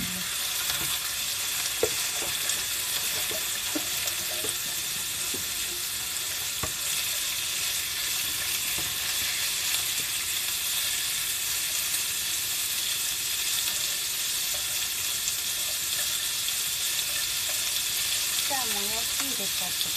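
Thin-sliced pork sizzling steadily in a hot frying pan as the slices are spread and turned, with a few light clicks.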